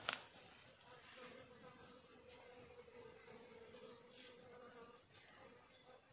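Faint, steady insect chirring, cricket-like, with a lower steady buzz joining about a second in. A brief click at the very start.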